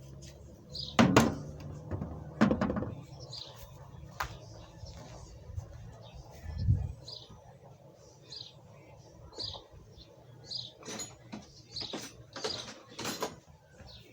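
A few sharp knocks and clinks in the first seconds and a dull thump near the middle. They are followed by short, high chirps repeating about once a second, like a small bird calling.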